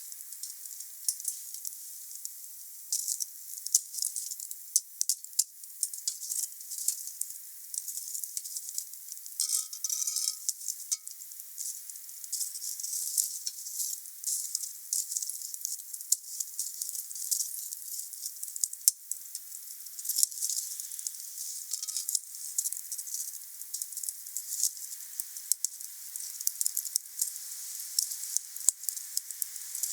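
Wood fire burning, crackling with many small sharp pops over a steady hiss. A faint brief whistle comes twice, about ten seconds in and again a little after twenty seconds.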